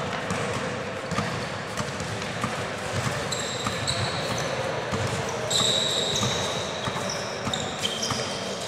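Indoor futsal game on a hard court: sneakers squeak sharply on the floor many times, among knocks of the ball and players' voices echoing in the hall.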